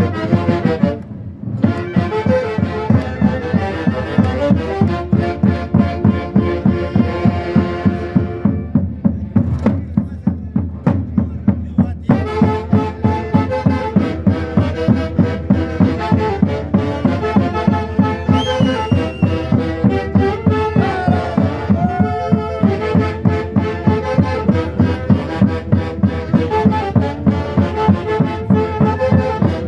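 A band playing traditional Andean festival music: wind instruments carry the melody over a steady, heavy beat. About eight seconds in, the melody drops out for a few seconds while the beat continues, then the full band comes back in.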